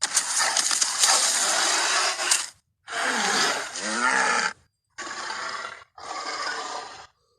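King Kong's roars and growls from the 2005 film, the giant gorilla's movie sound effects: four separate roaring growls in a row with short silent gaps between them, the first the longest and loudest.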